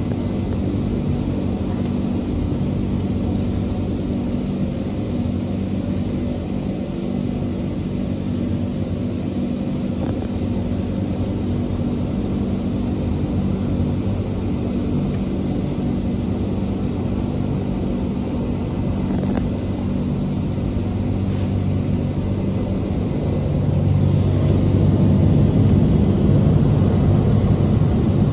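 Christ rollover gantry car wash working over a car, heard from inside the cabin: a steady low hum and rumble that grows louder about 23 seconds in as the wash reaches the side of the car.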